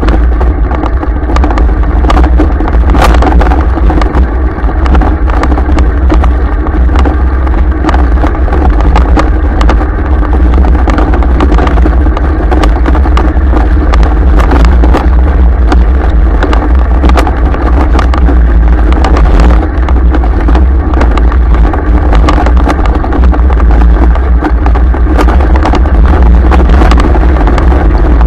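Loud, continuous low rumble of a vehicle riding over a rough dirt track, heard from a camera mounted on it, with many small knocks and rattles from the bumps throughout.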